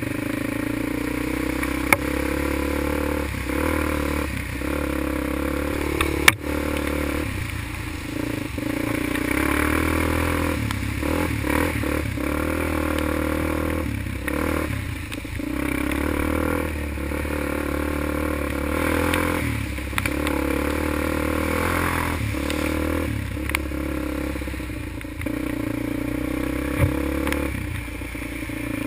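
Quad (ATV) engine running at speed, its revs rising and falling, with the tyres splashing through muddy trail puddles. A few sharp knocks stand out, one about six seconds in.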